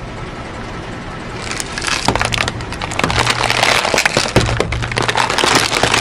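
A car tyre rolling onto and crushing crunchy objects. There is a low rumble at first, then from about a second and a half in a dense run of crackles and sharp snaps as things break under the wheel.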